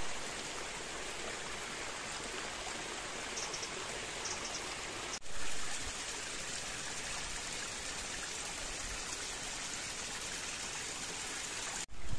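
Gorge stream rushing and splashing steadily over rocks, with a brief dropout about five seconds in.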